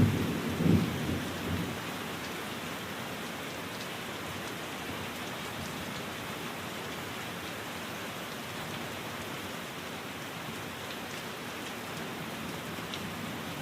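Steady rain, an even hiss with a few faint drop ticks, with the tail of a thunder rumble dying away in the first couple of seconds.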